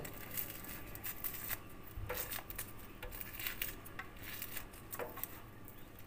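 Fingers peeling the charred skin off roasted red peppers: faint, scattered light clicks and rustles of skin and plastic being handled.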